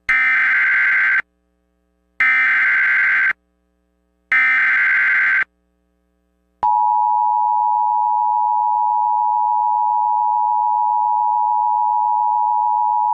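Emergency Alert System tones opening an Amber Alert. First come three short screeching bursts of SAME header data, each about a second long and a second apart. About six and a half seconds in, the steady two-tone EAS attention signal begins and holds.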